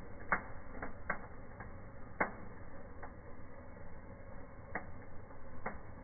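Fireplace firework burning in a fireplace fire: a steady hiss with irregular sharp crackles and pops, about eight in six seconds, the loudest about a third of a second in and just after two seconds.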